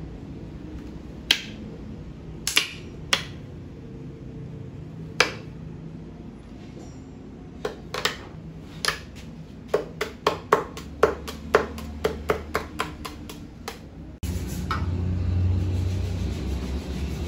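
Plastic filler spreader clicking against a fiberglass helmet shell as filler is worked over a seam: a few scattered sharp clicks, then a quick run of them at about two to three a second. Near the end the sound changes abruptly to a steadier noise with a low hum.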